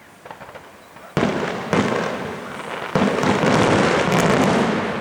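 Large aerial firework shells bursting: three loud booms, the first about a second in, the next half a second later and the third about three seconds in, each followed by a long rumbling echo. These are the big shells that make everything rumble.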